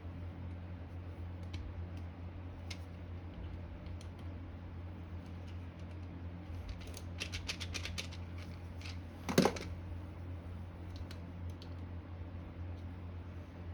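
Light clicks and taps of hand tools and small metal motor parts being handled. There is a quick run of clicks about seven to eight seconds in, and one louder knock about nine seconds in, over a steady low hum.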